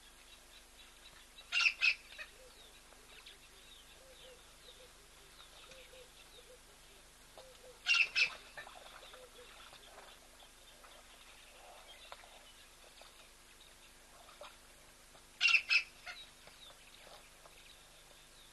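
A bird calling three times, about every seven seconds, each call a quick pair of sharp, loud notes, over faint chirping from other birds.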